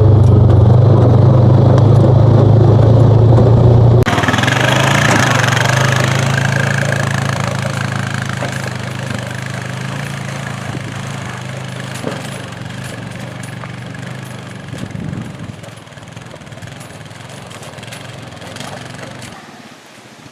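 The single-cylinder engine of a Honda Pioneer 500 side-by-side running steadily and loudly. About four seconds in the sound changes abruptly, and the engine then carries on much quieter, fading gradually, with a few faint knocks.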